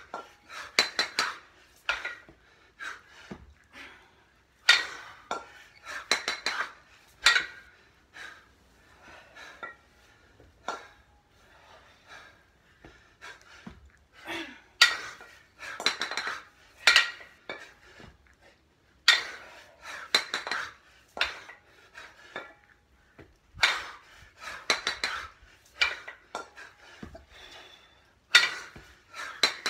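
A pair of 22 kg kettlebells clanking and knocking together, in a burst of metallic clinks about every five seconds, one burst for each long-cycle clean and jerk at a steady 11 reps a minute.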